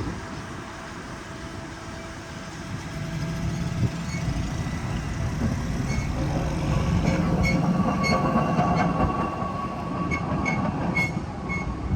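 BNSF hi-rail truck driving past on the rails: its engine and tyres rise to a peak about halfway through and then fade, with a scatter of sharp metallic ticks in the second half.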